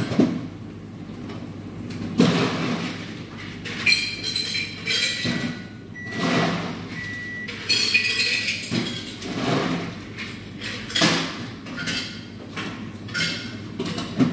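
Cups, glassware and utensils clinking and knocking in a run of separate hits as baristas work behind a café bar, with a thin high tone sounding a few times in the middle.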